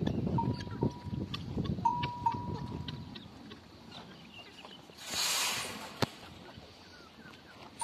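Sheep pen ambience: scuffing and rustling in the first few seconds under a faint, steady ringing tone, then a short hiss about five seconds in and a single sharp click.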